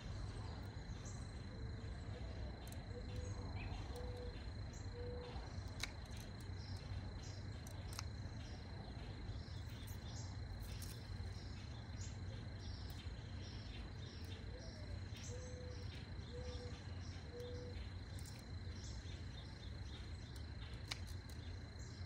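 Steady high insect trill over a low background rumble, with scattered light clicks of hand pruners cutting flower stems. Twice, a bird gives a low cooing phrase of four notes, the first rising and the rest level.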